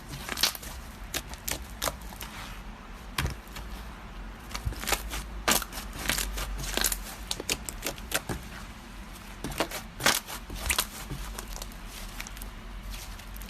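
Slime being squeezed and worked by hand, giving irregular sharp clicks and crackling pops, with a low steady hum underneath.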